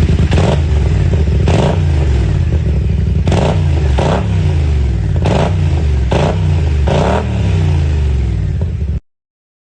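Kymco AK550's parallel-twin engine through an Akrapovič full exhaust system, revved in seven quick throttle blips from idle, each rising and dropping back. The sound cuts off abruptly near the end.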